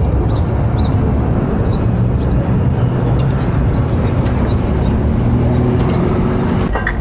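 Steady low rumble of street traffic, with a vehicle's engine hum swelling twice as cars pass. Small high chirps repeat about twice a second above it.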